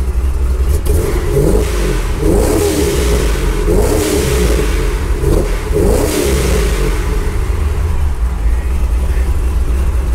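Supercharged LS V8 in a Corvette idling with a heavy, steady rumble, revved in several quick blips over the first six seconds or so, then settling back to idle.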